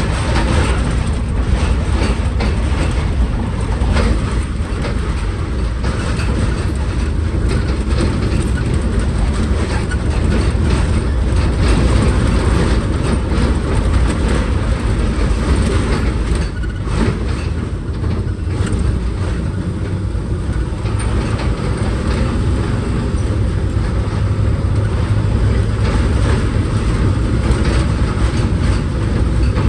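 Delivery vehicle driving, heard from inside the cab: steady engine and road noise with a constant light rattling.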